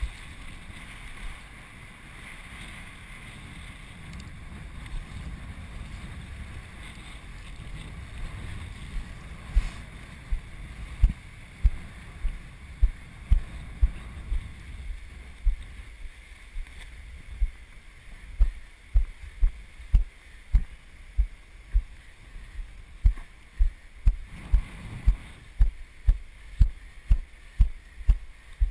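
Wind rumbling on the microphone. From about nine seconds in come a run of low thuds, which settle into a regular pace of about two a second: footsteps walking through shallow water on a wet sand flat.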